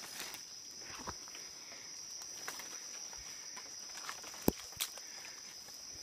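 Steady high-pitched drone of night insects in tropical forest, with scattered soft footsteps through undergrowth and two sharp snaps close together about four and a half seconds in.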